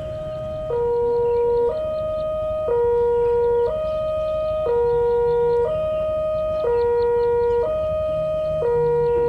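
Two-tone electronic warning alarm, stepping steadily between a higher and a lower note about once a second, with the pattern repeating throughout.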